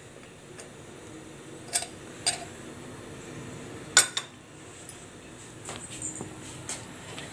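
Aluminium puttu tube and its perforated metal disc clinking and knocking as the disc is dropped into the tube and the tube is set down on a stone counter. There are several separate sharp metal clinks, the loudest about four seconds in.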